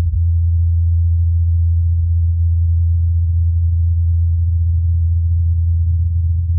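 Steady low hum of NASA's Ingenuity Mars helicopter's spinning rotor blades, recorded on Mars by the Perseverance rover's SuperCam microphone, heard as one unchanging deep tone.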